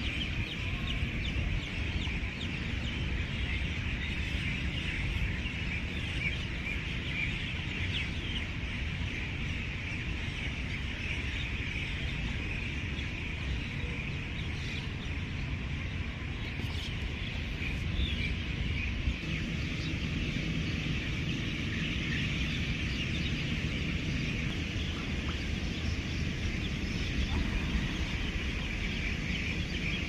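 Outdoor ambience of many small birds chirping continuously over a low steady rumble.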